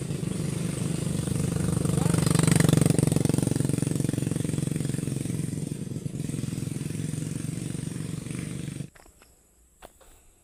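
A small engine running with a fast pulsing beat, growing louder to a peak about three seconds in and then easing off; it cuts off suddenly near the end.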